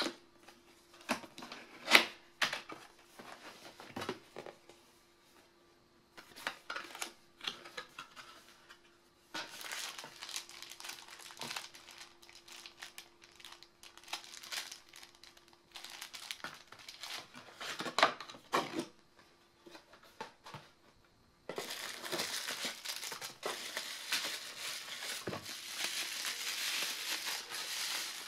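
Cardboard camera-box packaging being handled: scattered sharp clicks and taps, the sharpest about two seconds in, and stretches of paper and plastic rustling. Near the end comes continuous crinkling as plastic bubble wrap is unwrapped from a lens. A faint steady hum sits underneath.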